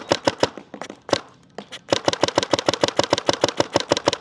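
GOG eNMEy fully mechanical paintball marker firing rapid semi-automatic shots on compressed air, about seven pops a second. The firing breaks off for about a second and a half soon after the start, with only a shot or two, then resumes at the same rapid pace.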